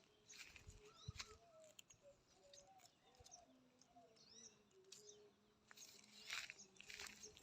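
Faint short bird chirps scattered through a quiet outdoor background, with a few soft rustles near the end.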